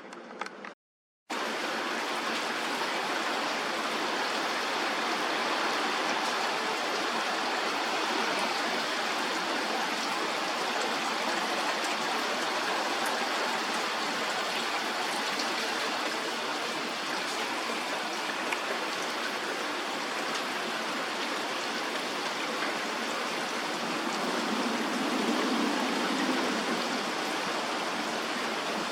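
Typhoon rain and wind as a steady, even rush of heavy downpour after a short break about a second in.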